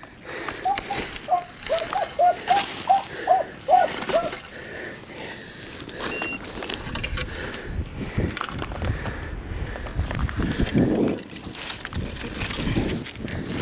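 Beagles giving tongue on a rabbit's trail: a quick run of about a dozen short barks in the first four seconds, then another call about eleven seconds in. Footsteps and brush crackle throughout.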